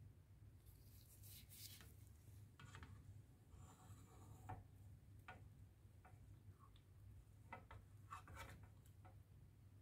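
Faint scrapes and light taps of a slotted spatula against a pan as it slides under a poached egg in the water and lifts it out, over a low steady hum.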